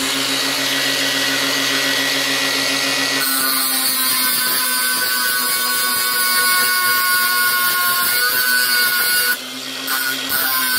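Angle grinder with a thin slitting disc running at speed, grinding the rivet heads off the steel pins of a motorcycle drive chain held in a vise, to split the chain. Its tone changes about three seconds in, and it dips briefly near the end before picking up again.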